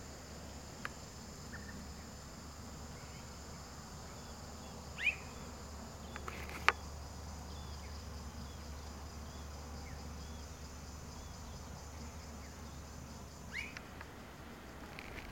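Steady high-pitched drone of insects, with a short rising bird chirp about five seconds in and again near the end, and a single sharp click between them.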